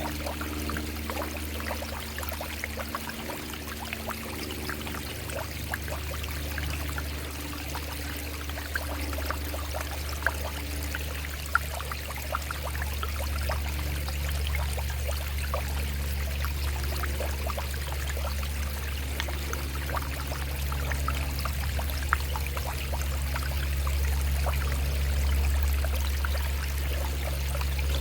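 Shallow stream running over rocks: steady babbling and trickling, dense with small splashes and a few sharper plinks. A steady low hum runs underneath and swells slightly near the end.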